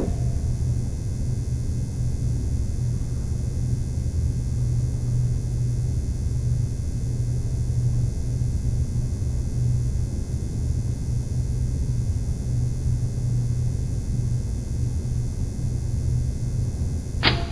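A steady low hum with a rumble beneath it, unchanging throughout, and a single short click near the end.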